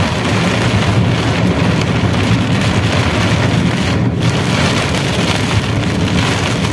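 Heavy rain hitting a car's roof and windscreen, heard from inside the cabin, with a steady low rumble from the moving car underneath.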